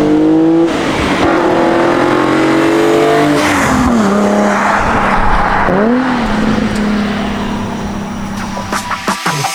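Nissan 350Z's 3.5-litre V6 through a cat-back touring exhaust, accelerating hard with the pitch climbing, a brief break for a gear change, then climbing again before falling away as the throttle is lifted. A quick rev blip rises and falls about six seconds in, and the engine then settles to a steady drone.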